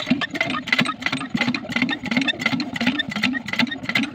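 Small Chinese diesel engine running steadily while it drives a well water pump, with a rapid, even knocking beat.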